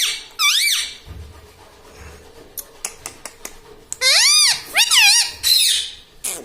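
Indian ringneck parrot calling: high-pitched calls that sweep up and down in pitch right at the start, then a longer run of such calls about four seconds in, ending in a harsher, noisier call.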